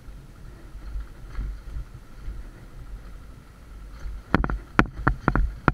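Suzuki Thunder 125's single-cylinder engine running low under the rumble of riding a rough dirt track. About four seconds in comes a quick cluster of six or seven sharp knocks as the motorcycle jolts over the rocky surface.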